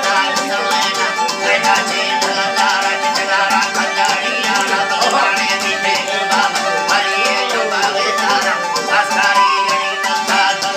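Instrumental music with held tones over a fast, steady rattling beat.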